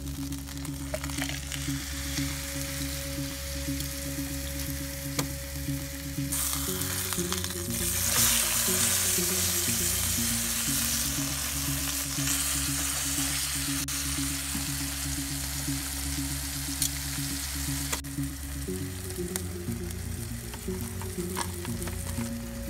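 Salisbury steak patty of ground beef frying in hot oil in an anodized-aluminium frying pan, a steady sizzle that grows louder about six seconds in and eases off again around eighteen seconds. Background music plays underneath.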